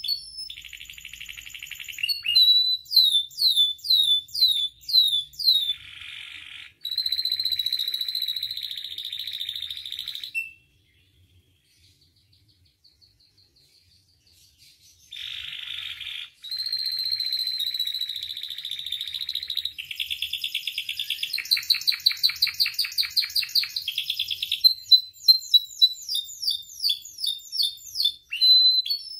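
Domestic canary singing: series of quick down-sweeping whistles, buzzy trills and fast rolling runs of repeated notes, with a pause of about four seconds near the middle.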